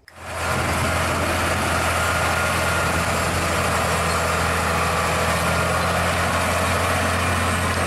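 Scania heavy truck's diesel engine running steadily with a deep, even hum as it pulls a loaded double-trailer road train.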